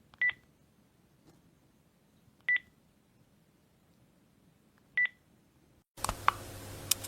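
Electronic button beep: three short, high single-tone beeps about two and a half seconds apart. Near the end a different sound begins, a hiss with a couple of sharp clicks.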